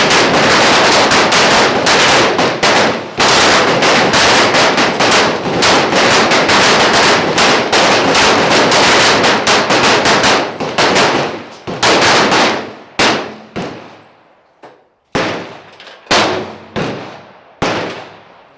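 A line of pistols firing a timed string at once: a dense, overlapping crackle of shots for the first ten seconds or so, thinning to scattered single shots near the end as shooters finish their strings.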